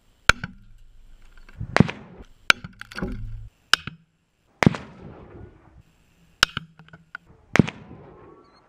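A string of rifle shots, about eight sharp cracks at uneven spacing, several with a short rumbling tail, and the sound dropping abruptly to silence between some of them where the clips are cut together.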